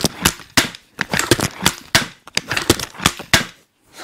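Steambow AR-6 Stinger II repeating bow with a 55 lb limb, shot in quick succession. The cocking mechanism and string release make a rapid run of sharp clacks and snaps, several a second, which stops about three and a half seconds in.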